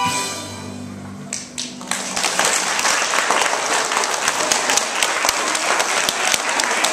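Audience applauding: a lull at first, then many hands clapping from about two seconds in, steady to the end.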